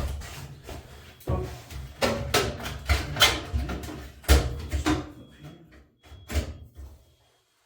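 Irregular knocks and clatter of hands working on the washer's sheet-metal cabinet and wiring, with several sharp strikes in the first five seconds, then fading to a few light taps.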